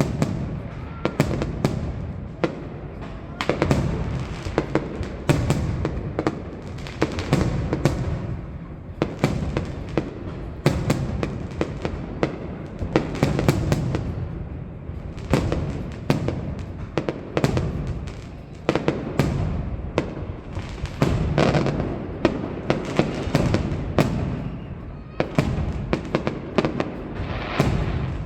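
Aerial fireworks display: a continuous barrage of shell bursts, dozens of sharp bangs coming in dense clusters over a steady low rumble.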